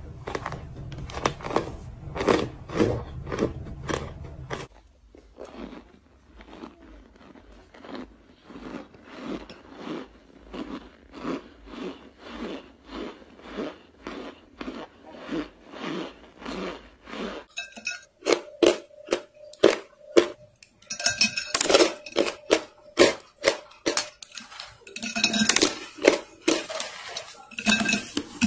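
Chunks of compressed cornstarch being bitten and chewed, a steady series of squeaky, crackly crunches about one or two a second. About two-thirds of the way in the crunches become louder and sharper.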